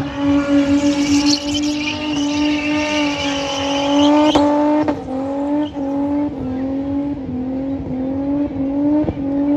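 Holden Commodore wagon doing a burnout: the engine is held at high revs while the rear tyres spin and squeal. About four seconds in the squeal stops with a sharp snap, and the engine note then dips and rises about once a second as the throttle is worked.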